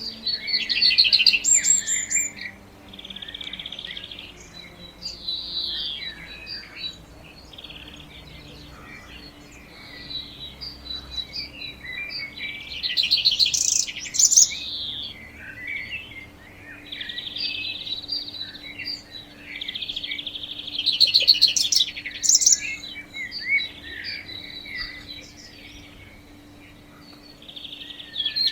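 Songbirds chirping and trilling in short repeated phrases every few seconds, over a faint steady low hum.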